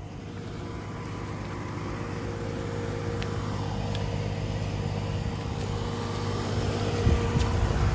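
Running outdoor heat pump or air-conditioner condensing unit: a steady hum from the compressor and fan, growing steadily louder as it gets closer.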